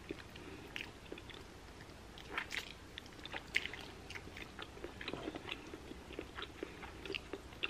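Faint chewing and biting of baked turkey wing meat, with many small scattered wet clicks and smacks of the mouth.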